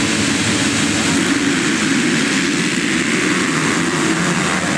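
A full field of motocross bikes launching from the start at full throttle, many engines running together as the pack races past close by.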